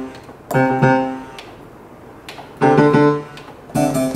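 Roland HP-3000S digital piano played through its built-in speakers: three chords struck and left to ring, about half a second in, past the middle, and near the end. The speakers give a slight fuzz, which the owner thinks may come from the amplifier.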